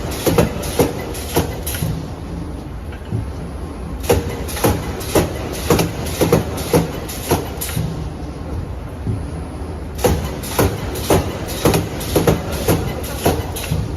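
Gantry wire mesh welding machine spot-welding: runs of sharp clanks about two a second, each run lasting a few seconds and separated by pauses, over a steady low machine hum.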